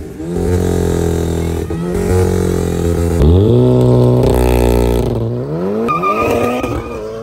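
Volkswagen Golf GTI fitted with a Golf 7 R engine, its turbocharged 2.0-litre four-cylinder revving: the engine note holds, rises sharply about three seconds in, drops away, then climbs again near the end.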